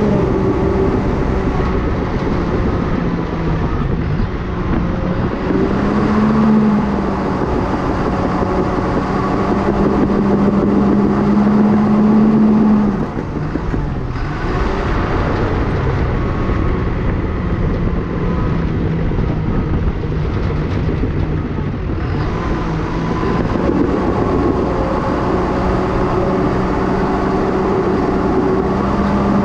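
Cat D5K crawler dozer's diesel engine running under load as it pushes dirt. The engine note rises about six seconds in, holds high, then drops sharply about halfway through.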